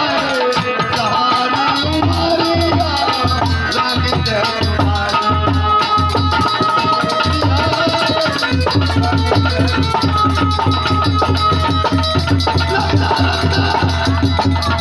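Instrumental interlude of a devotional bhajan: a drum beating a steady rhythm, a rattle shaking along with it, and held melody tones above.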